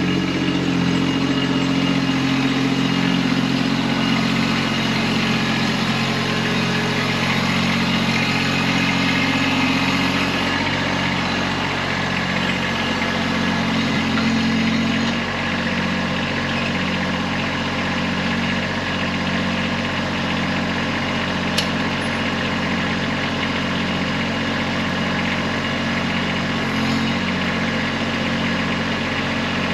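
Kubota B2301 tractor's three-cylinder diesel engine running steadily while working the BH70 backhoe. About halfway through, the engine note drops slightly and a slow, even pulsing sets in; one sharp click comes about two-thirds of the way through.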